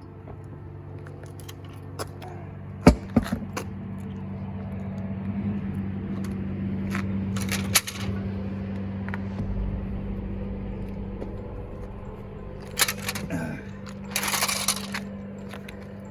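Sharp metal clinks and knocks from the tyre change, a few about three seconds in, one near the middle and a cluster near the end with a short scrape, over a steady low engine hum.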